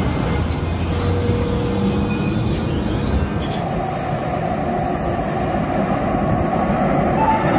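DART Kinki Sharyo light rail car moving past on street track, with a thin, high, wavering squeal over the rumble of the running gear for the first three seconds. After a sudden break, a steady rushing noise of another light rail train approaching on elevated track.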